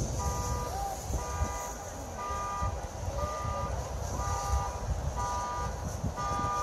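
Car alarm sounding: a vehicle horn honking in a steady rhythm, about once a second, starting about a second in.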